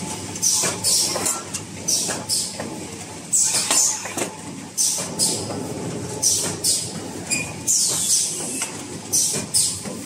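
Automatic glove packing machine running: short sharp hisses of air from its pneumatic cylinders, about two a second at uneven intervals, over the steady clatter and hum of its conveyors and chain drives.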